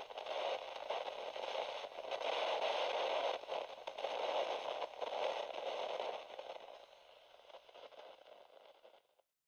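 Radio static: a crackling hiss, squeezed into a narrow band like a radio channel, swelling in waves, then fading over the last few seconds and cutting off abruptly.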